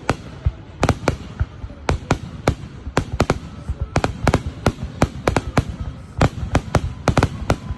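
Fireworks going off in quick, irregular succession: sharp bangs several a second over a low rumble, with a faint whistle about halfway through.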